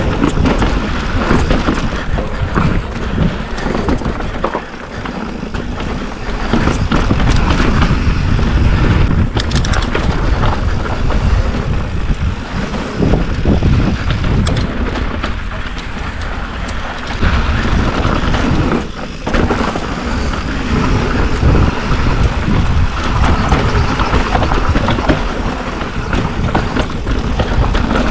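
Wind rushing and buffeting over the microphone of a mountain bike descending a dirt singletrack, mixed with tyre noise over dirt and rocks. The level surges and dips with the riding speed.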